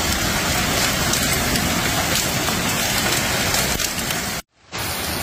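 Heavy rain pounding down: a dense, steady patter of sharp hits. It cuts out abruptly for about half a second near the end, then carries on.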